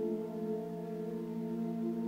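Background music of sustained, steady held tones, with no other sound over it.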